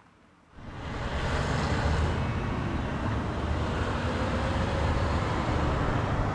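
Steady outdoor background noise, a low rumble with a hiss over it, that starts suddenly about half a second in.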